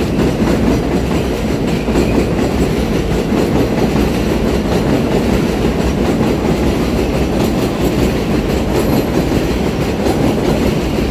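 New York subway train on the elevated 7 line passing overhead on the steel el structure: a steady, loud rail noise with no let-up.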